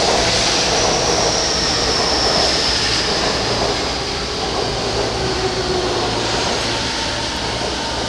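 Electric train running on a nearby track: a steady rail rumble with a high whine that slowly falls in pitch, easing off a little in the second half.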